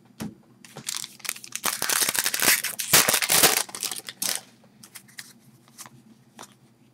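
Foil wrapper of a trading-card pack being torn open and crumpled, a dense crackling lasting about three seconds from roughly a second and a half in, with light clicks of cards being handled around it.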